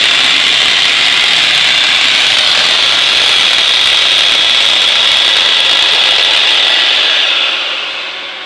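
Homemade turbojet built around a turbocharger, running: a steady loud roar with a high whine. About seven and a half seconds in it dies down as the engine is shut off.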